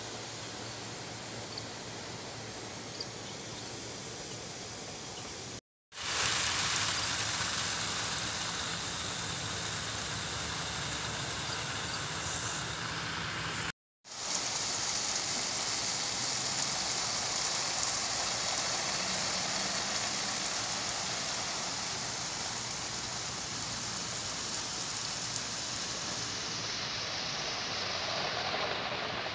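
Garden sprinklers spraying water that falls like rain: a steady hiss and patter. It cuts out to silence briefly twice, about six and fourteen seconds in, and is louder after the first break.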